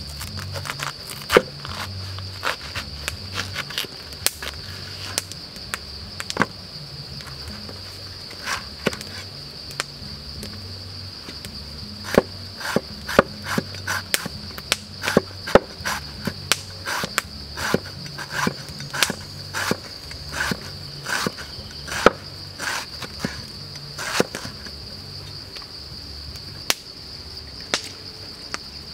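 Cleaver chopping banana blossom on a wooden cutting board: a run of sharp knocks, most regular through the middle at about two a second. Underneath is the steady high chirring of crickets.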